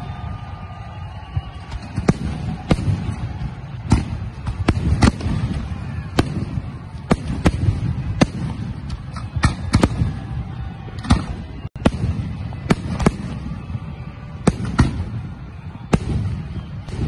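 Fireworks display: a rapid, irregular run of sharp bangs from shells bursting, often one or two a second, over a continuous low rumble.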